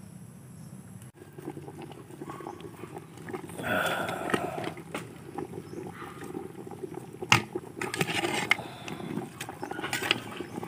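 A big metal pot of balbacua stew bubbling at a hard boil over a wood fire, while a metal ladle stirs it, clinking and scraping against the pot. The loudest sound is one sharp knock of the ladle a little past the middle, with more clatters after it.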